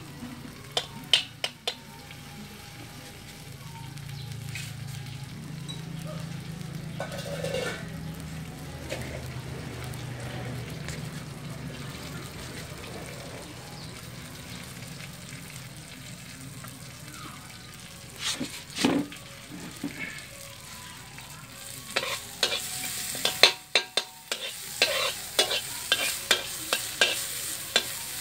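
Food sizzling in a steel wok over a wood fire. Near the end a metal spatula scrapes and knocks against the wok in quick strokes, and the sizzle grows louder with the stirring.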